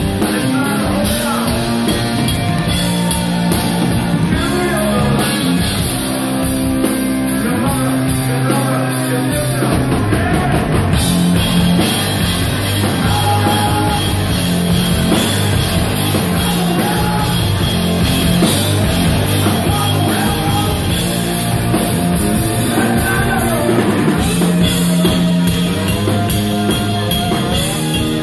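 Hard rock band playing live and loud: distorted electric guitar, bass and drum kit, with a singer's vocals over them.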